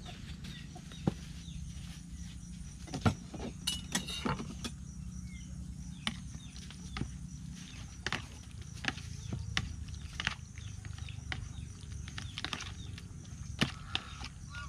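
Hand mixing and squeezing raw sliced beef in a plastic bowl: irregular wet clicks and squelches over a steady low hum.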